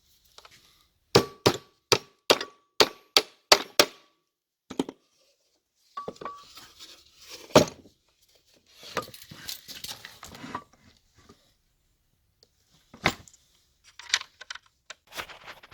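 Metal hardware and tools knocking and clinking as a small bench vise is bolted to a wooden board: first a quick run of about nine sharp metallic strikes with a ringing note, then scattered clinks, scraping and one loud knock, and a few more knocks near the end.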